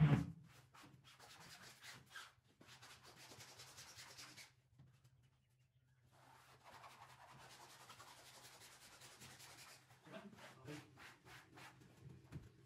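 3D flex wallpaper being rubbed and smoothed onto a wall, a faint dry rubbing in long passes with a short pause midway, turning into short scrapes and taps near the end.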